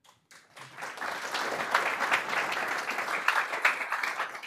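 Audience applauding: many hands clapping, starting within the first half second, holding steady, then thinning out near the end.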